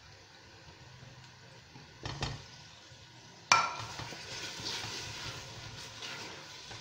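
A utensil knocks against a stainless steel pot, then strikes it sharply about three and a half seconds in. Sizzling follows as chicken, onion and tomato fry in the pot while they are stirred.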